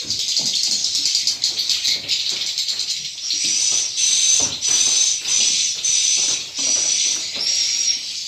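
Dense high-pitched chirping and clicking of swiftlets. From about three seconds in, a run of short, steady high notes repeats about every three-quarters of a second.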